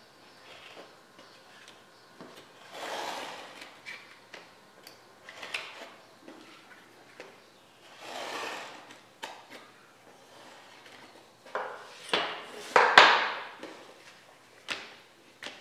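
A knife is drawn along a steel ruler to cut through leather, in cutting strokes about a second long, with light clicks and knocks between them. Near the end come the loudest knocks and scrapes as the ruler and knife are handled and set down on the wooden table.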